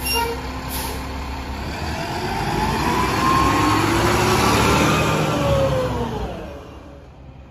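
Mack LR side-loader garbage truck pulling away and driving past close by: its engine revs up in pitch, is loudest as the truck passes, then fades away near the end.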